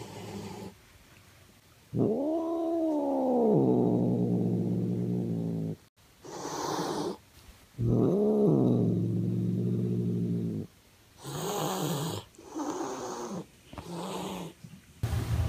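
Long-haired tortoiseshell cat yowling twice, long calls that rise, fall and settle into a held low growl, then hissing in three short bursts near the end. It is a hostile warning aimed at her newly shaved brother cat.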